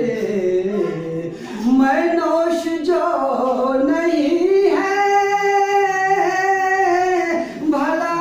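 A man singing a line of an Urdu ghazal in melodic recitation, his voice gliding between notes and then holding one long note for more than two seconds past the middle.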